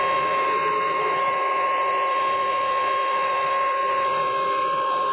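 Small metal lathe running at steady speed with a constant high whine while its tool cuts decorative grooves into a spinning brass rod.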